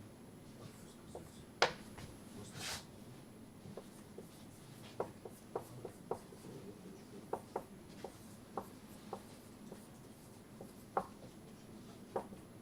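Writing on a board: a series of light, irregular taps, with a sharper knock about one and a half seconds in and a short scrape just after it.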